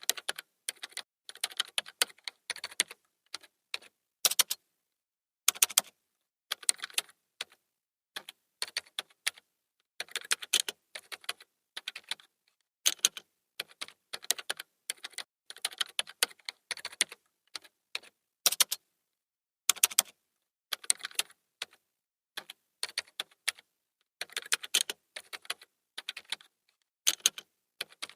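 Typing on a computer keyboard: rapid clusters of key clicks in short bursts with brief pauses between, and now and then a single louder keystroke.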